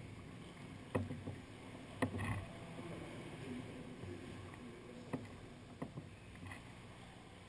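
Sea kayak paddling inside a sea cave: a low, steady wash of water against the hull, broken by a few sharp knocks and splashes, about a second in, twice around two seconds and twice past five seconds.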